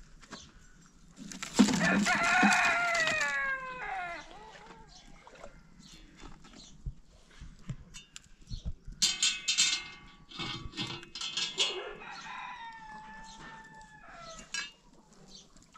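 A rooster crows loudly about two seconds in, a drawn-out call falling in pitch at the end, and crows again more faintly later on.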